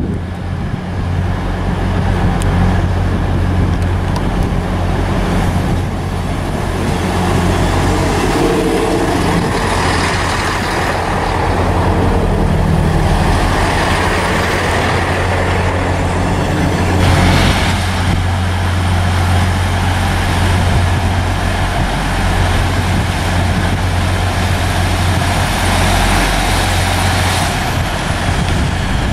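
Class 158 diesel multiple unit running in past the platform, its underfloor diesel engine giving a steady low drone over the rumble of wheels on the rails. A short louder hiss comes about halfway through.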